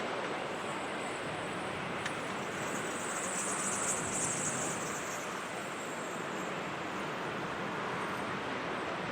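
Steady rushing roar of distant jet engines mixed with wind noise on the microphone, with a brief high-pitched chirr about three to five seconds in.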